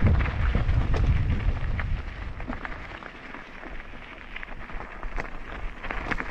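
Wind buffeting the microphone, easing after about two seconds, over frequent small clicks and rattles of a mountain bike riding a rough trail.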